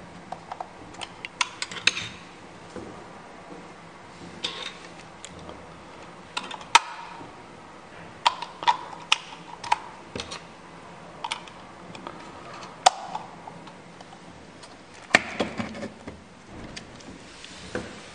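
Plastic housing of a battery-powered dummy dome security camera being handled and fitted together: irregular sharp clicks and taps, with a few louder snaps spread through.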